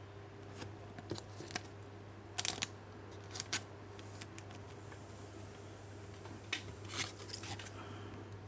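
Trading cards being handled by hand: light, scattered rustles and clicks of card stock and packaging, over a faint steady low hum.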